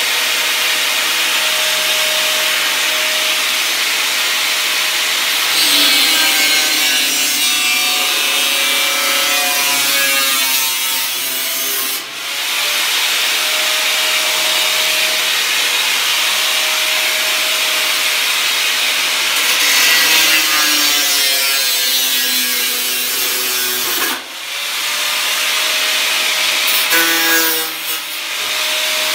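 Power saw cutting through rusty steel body panel sheet metal, running steadily with its pitch sagging and recovering as it loads in the cut. It stops briefly twice and starts again.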